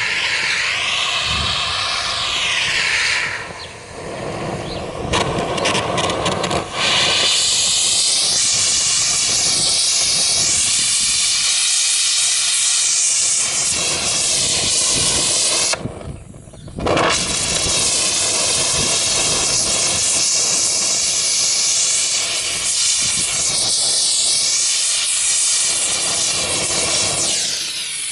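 Oxygen-assisted gas torch flame with a loud, steady hiss, its tone sweeping up and down. It breaks off briefly about sixteen seconds in, then comes back.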